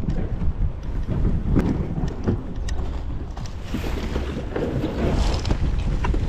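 Wind buffeting the microphone in a steady rumble, with scattered crunches and clicks of footsteps on a shingle beach.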